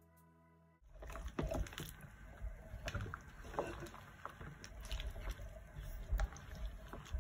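Silicone spatula stirring pieces of goat meat in their liquid in a ceramic pot: wet stirring noise with irregular knocks against the pot. Background music plays briefly at the start and cuts off under a second in.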